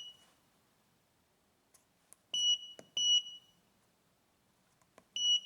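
Keypad beeps from a handheld Autel AL539 scan tool as its buttons are pressed to step through the menus: three short high beeps, each just after a faint key click, two close together about two seconds in and one near the end.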